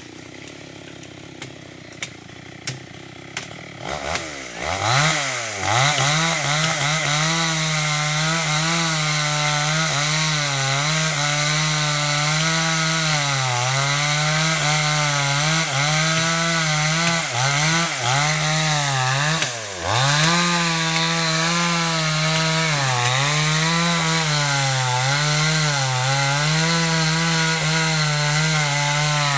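A few light clicks, then about four seconds in a two-stroke chainsaw revs up and cuts wood, its engine pitch sagging and recovering over and over as the chain bites into the log. Around two-thirds of the way through it briefly drops off, then revs up and cuts again.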